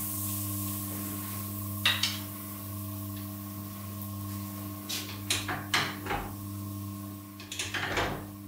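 Metal rotisserie skewers clicking and clinking as they are set into the spiral-drive rotisserie of a charcoal grill. There is one click about two seconds in, a few more around the middle and a quick run of clicks near the end, over a steady low hum.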